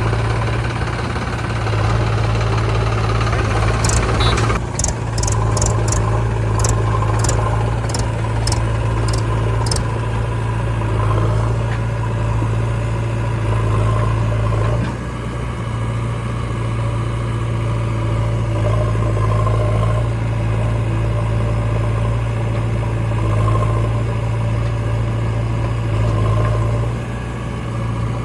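Diesel engines of a JCB 3DX backhoe loader and tractor running steadily at work, with a run of about ten sharp clicks about four to ten seconds in.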